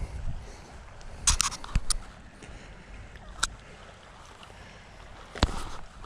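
A few sharp clicks and knocks of handling: a quick cluster about a second in, then single ones a little past the middle and near the end, over a steady outdoor hiss.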